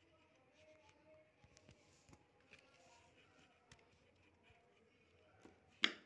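Faint scratching of a pencil drawing on paper, with scattered light ticks. A single sharp knock near the end.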